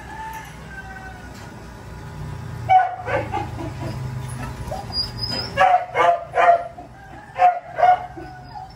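Dog yipping and barking in short bursts: a couple about three seconds in, then several in quick succession from about five and a half to eight seconds, with faint whining at the start.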